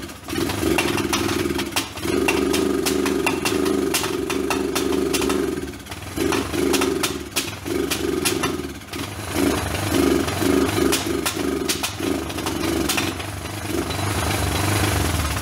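Kawasaki four-wheeler's four-stroke engine running on its first start after a home top-end rebuild, with the valves ground by hand. It runs unevenly: from about six seconds in the note keeps dropping out and catching again. The owner believes the engine is out of time.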